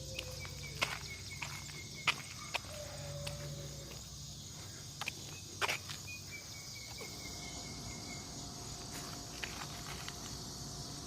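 A steady, high chorus of crickets and other insects, with scattered sharp clicks and snaps and, twice, a faint drawn-out high note.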